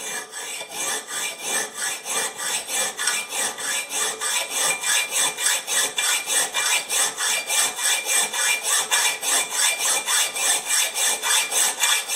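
Rapid rasping strokes of a hand tool, such as a saw or file drawn back and forth, about four strokes a second in an even rhythm, starting and stopping abruptly.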